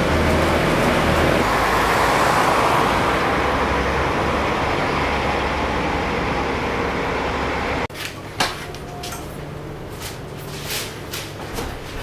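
Industrial utensil washing machine running: a loud, steady rush of noise over a low hum. It cuts off abruptly about eight seconds in, leaving a quieter hum with scattered clicks and knocks.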